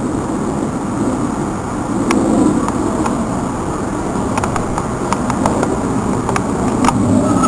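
Ford Thunderbird running at a steady engine speed, with no revving. A few light clicks sound over it.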